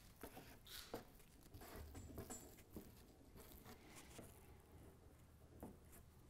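Very faint, irregular scraping and soft clicks of a plastic body-filler spreader pressing and smoothing green long-strand fiberglass filler into the seam at the base of a fiberglass hood scoop.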